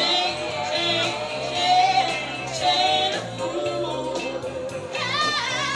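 A woman singing live into a microphone over instrumental backing, with a fast run of wavering notes about five seconds in.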